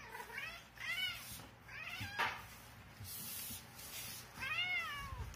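Domestic cat meowing several times, short high-pitched meows that rise and fall in pitch, with a longer one near the end: eager begging for an opened can of wet food.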